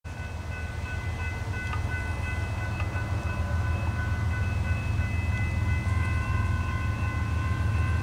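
Approaching diesel freight train led by two GE ES44C4 locomotives: a deep engine rumble that grows steadily louder, with a faint steady high-pitched tone over it.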